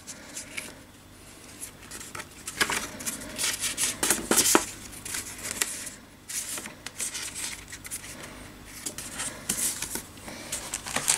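Stiff paper cards rustling and sliding against each other as a small stack of art cards is handled and shuffled by hand, in short irregular scrapes and swishes.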